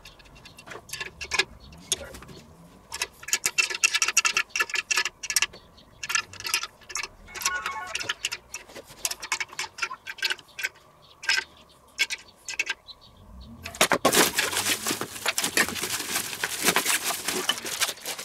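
Irregular metallic clicks and ticks of a small hand tool and screws being worked on the handle fittings of a ceramic mini kamado grill. About three quarters of the way in, plastic packaging crinkles and rustles densely.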